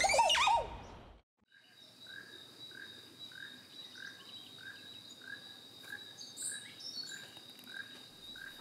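Forest ambience: a short chirping call repeated evenly, a little under twice a second, over a thin steady high whine. It follows the falling end of a whooshing sound-effect sting, which stops about a second in.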